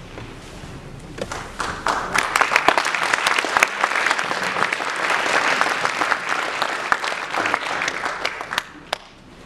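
Audience applauding: dense clapping that starts about a second in and dies away shortly before the end.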